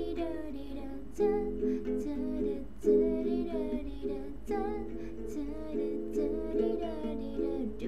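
Ukulele strummed in chords at a moderate, steady pace, with a wordless sung melody carried over it.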